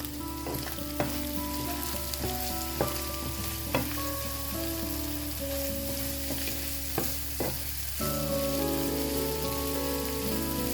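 Chicken and vegetables sizzling steadily in a frying pan while being stirred, with a few sharp knocks of the utensil against the pan.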